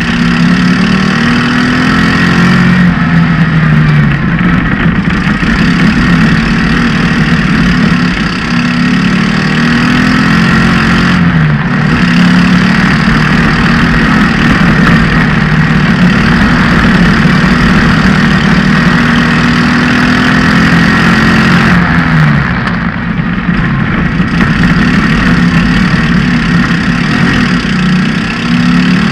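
Off-road race buggy's engine running hard at high revs, its pitch sliding down and climbing again several times as the throttle is eased and reopened. A dense rushing noise runs under the engine throughout.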